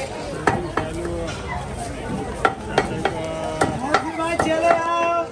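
Knife paring the skin off a whole pineapple: a string of sharp, irregular cuts and clicks as the blade slices through the rind.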